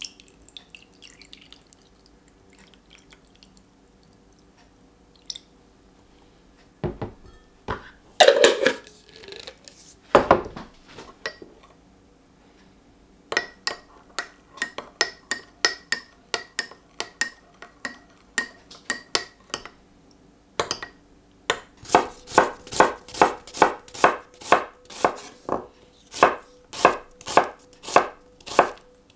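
Water poured in a thin stream into a glass measuring jug, then a few loud knocks. Next, a metal spoon stirs miso paste into the water, clinking against the glass about three times a second. From about two-thirds of the way in, a knife chops an onion on a wooden board in quick, even strokes, about three a second; this is the loudest sound.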